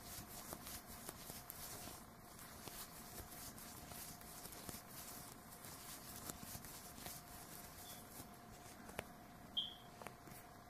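Faint rustling and light scattered ticks of a crochet hook and yarn being worked by hand as stitches are made, with a slightly louder tick about nine seconds in and a faint steady hum underneath.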